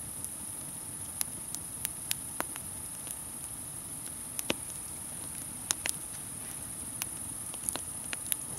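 Wood campfire crackling, with about a dozen sharp, irregular pops and snaps over a steady high-pitched hiss.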